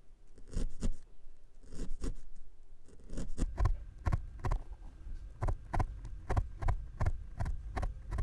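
Felting needle stabbing repeatedly through wool into a felting mat while a small ball of black wool is tacked on as a pupil. It makes a run of short, soft thumps: a few scattered ones at first, then a steady rhythm of about three a second from about three seconds in.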